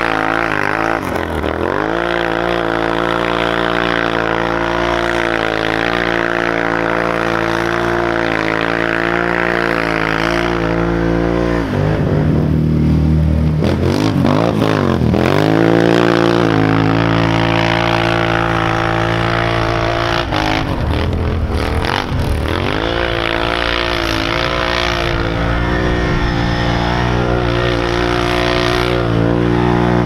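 The Rotax V-twin of a 2015 Can-Am Renegade 1000 ATV with dual HMF slip-on exhausts, held at high revs for long stretches while the tires spin through deep snow. The revs drop and climb again a few times, near the start, about twelve seconds in and about twenty seconds in.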